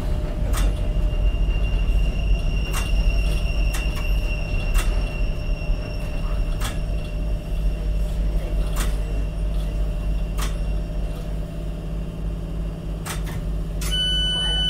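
Tyne and Wear Class 994 Metrocar running on the track, heard from inside the cab: a steady low rumble with sharp clicks every second or two from the wheels over the rails and a faint high whine. Near the end a steady electronic beep tone starts.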